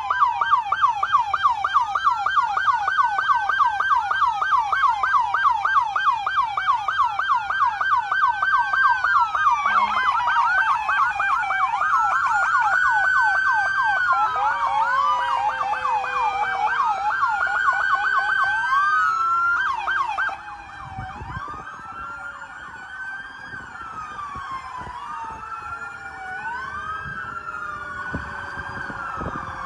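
Several police car sirens sounding at once: overlapping fast yelp cycles for about twenty seconds, then the level drops and slower wails rise and fall every couple of seconds.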